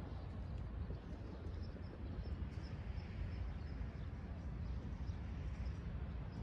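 Seaside outdoor ambience: a steady, fluttering low rumble of wind on the phone's microphone under a soft hiss, with faint, short, high chirps of small birds scattered through it.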